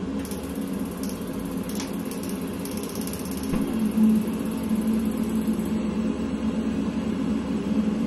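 Ariston E-combi 1 condensing gas boiler starting up on a call for central heating: its fan and pump run with a steady hum. A fast, fine, high ticking goes on for the first five or so seconds, and there is a short thump about four seconds in as the burner ignites.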